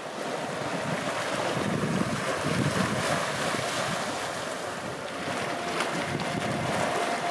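Small sea waves washing and lapping against a rocky shoreline, swelling and easing, with wind on the microphone.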